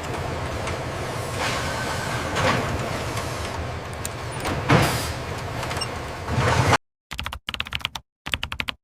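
Steady hum and whir of warehouse machinery with a couple of louder swells. It cuts off abruptly about seven seconds in, giving way to short bursts of rapid clattering broken by dead silences.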